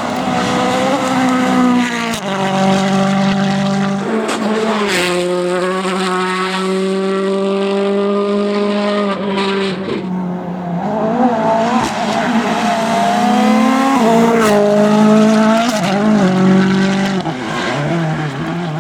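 World Rally Car's turbocharged 1.6-litre four-cylinder engine at high revs. The revs shift with gear changes, hold steady for several seconds in the middle, then drop and climb again.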